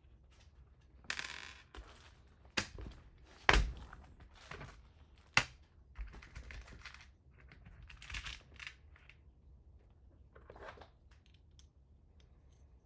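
Hard parts and tools being handled during printer assembly: a few sharp clicks and knocks, the loudest about three and a half seconds in, between stretches of scraping and rustling.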